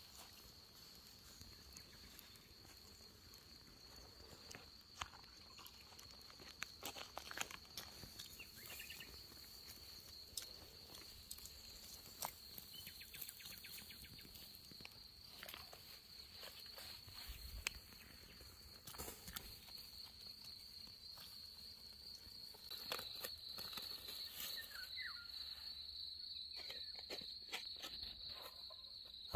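Cricket singing a steady, continuous high trill, louder in the last several seconds, with scattered light clicks and taps over it.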